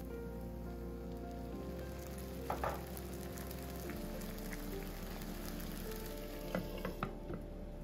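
Food frying and sizzling in a pan, a steady crackling hiss with a few sharp clicks, under soft background music of sustained chords that change every few seconds.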